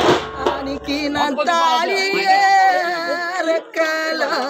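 A man singing an oppari, a Tamil funeral lament, in a high voice with long held notes. Drums beat under him for about the first second and a half, then stop, leaving the voice alone.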